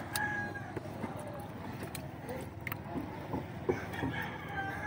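Rooster crowing: one call trails off about half a second in and another call starts near the end, over steady outdoor background noise with a few light clicks.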